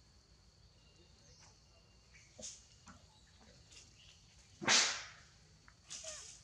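Quiet outdoor background with a faint steady high tone and a few soft clicks, broken about three-quarters of the way through by one short, loud rush of noise that fades out within half a second.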